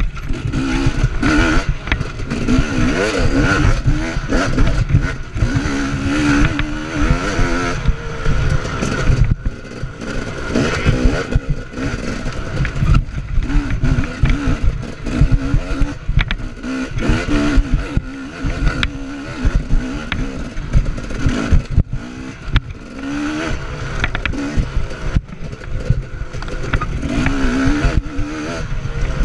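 Off-road dirt bike engine revving up and down over and over as it is ridden hard on a rough woods trail. Frequent knocks and clatter come from the bike over bumps, heard from the rider's chest.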